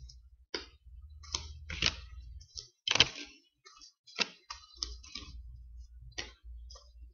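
Ciro Marchetti Gilded Tarot cards being dealt from the deck onto a table: a string of sharp, irregular card snaps and taps, about a dozen over the few seconds, with a faint low rumble of handling underneath.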